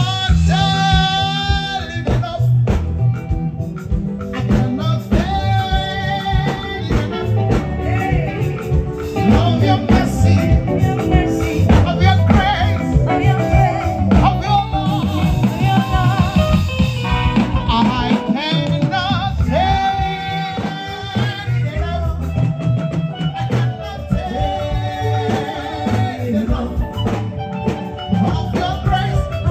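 Worship song sung by a woman over a live backing band with drums and bass, with a steady beat.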